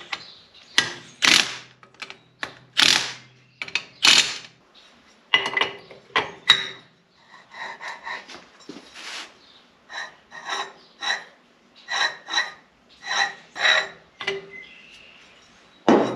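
Cordless power driver running in three short bursts against a power steering pump, driving its bolts. It is followed by a run of sharp metallic clicks and clanks as the pump parts are handled.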